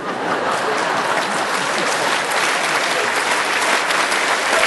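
Audience applause breaking out all at once and holding as a dense, steady clapping in response to a joke from the stage.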